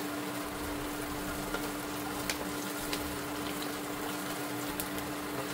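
Onions, green chillies and curry leaves sizzling in hot oil in a kadai, with a few faint clicks over a steady low hum.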